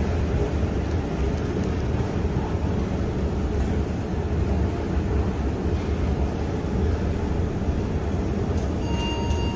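Steady low rumble of a long escalator running, heard while riding on it. Near the end a few held tones come in.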